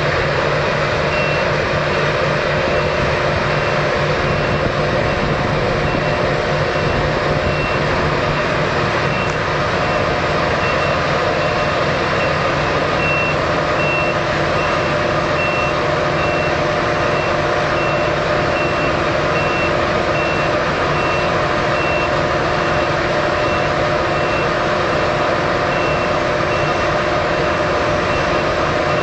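Combine harvester running steadily under load, its engine and threshing gear making a constant drone, with a reversing alarm beeping evenly at about four beeps every three seconds over the top.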